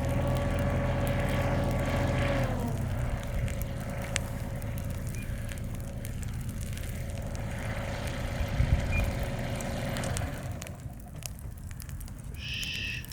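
Engine of a heavy construction machine running, its whine dropping in pitch about two and a half seconds in as it eases off, then carrying on at a lower rumble.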